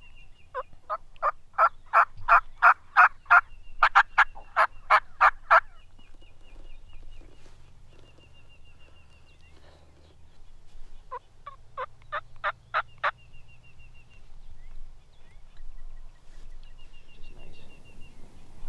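Hand-worked turkey call sounding hen yelps: a fast, even run of about fifteen yelps, then a pause and a shorter run of about five, calling to draw in gobblers.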